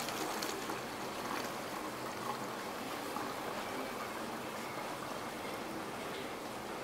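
Vinegar poured steadily from a jar through a funnel into a plastic bottle: a continuous trickle of liquid.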